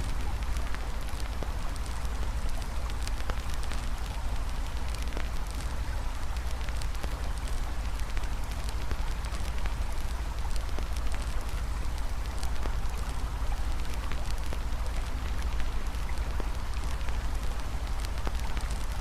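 Campfire crackling with frequent small pops, over a steady rush of flowing river water and a low rumble.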